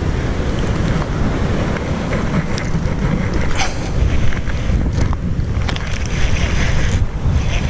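Wind buffeting the microphone: a steady, loud low rumble, with a couple of faint clicks around the middle.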